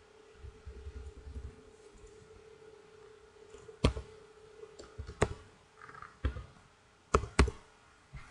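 Keys being typed on a computer keyboard: a few separate sharp clicks, spaced irregularly, with two quick ones close together near the end. A faint steady hum underneath stops about four seconds in.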